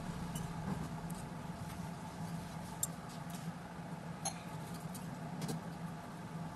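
A steady low hum runs under a few light clicks and taps. The sharpest click comes about three seconds in, and two more follow a little later.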